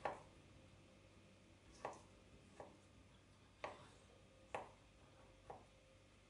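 Kitchen knife chopping potato slices on a plastic cutting board: about six faint, sharp knocks of the blade, unevenly spaced about a second apart.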